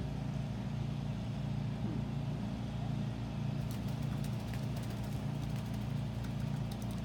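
A steady low mechanical hum throughout, with a few faint splashes and wing flutters about halfway through and near the end as an African grey parrot bathes in her water bowl.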